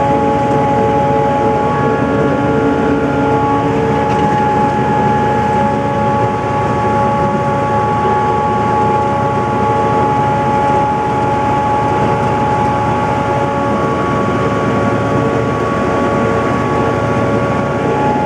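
Grand-scale F-unit locomotive running steadily under way, heard from inside its cab: a continuous engine drone with several steady tones held over it.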